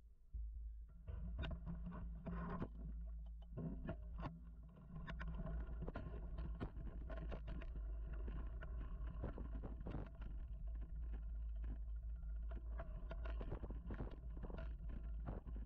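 Mountain bike riding along a dirt singletrack, heard from a camera mounted on the bike or rider. There is a steady low rumble, with frequent clicks, knocks and rattles as the bike goes over the rough ground. It is quieter for the first second, and the rattling starts about a second in.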